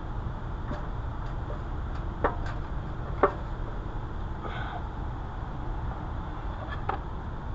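A few light metal knocks and clicks, two sharper ones a little over two and three seconds in, as the upper oil sump is worked into place around the transmission, over a steady low hum.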